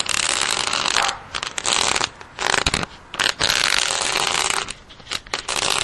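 Steel end of a garden-hose nozzle dragged across cement pavement, scraping in several long rough strokes with short breaks between them.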